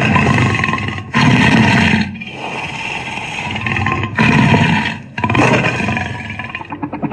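Monster roar sound effects: a run of loud, drawn-out kaiju-style roars, one after another with brief breaks between them, the loudest about a second in and about four seconds in.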